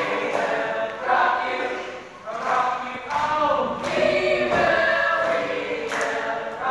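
A group of voices singing together, with a sharp hit about once a second.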